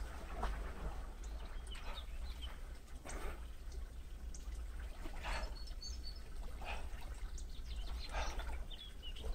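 A swimmer's arm strokes splashing through the water, a short splash about every second and a half, over a steady low rumble, with a few brief bird chirps.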